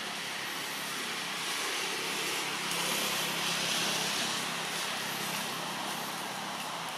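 Steady rushing outdoor background noise with a faint low hum beneath it, swelling about three seconds in and easing off again.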